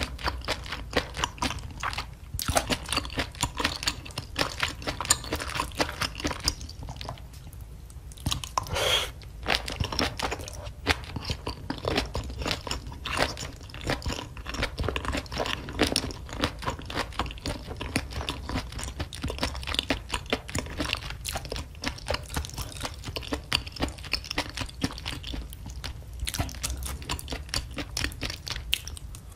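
Close-miked chewing of saucy food with crunching and wet mouth clicks, a person eating in steady, irregular bites.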